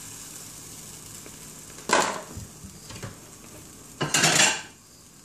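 Egg and melted cheese sizzling in a Gotham Steel nonstick frying pan, with a spatula knocking against the pan about two seconds in and scraping across it for about half a second near four seconds.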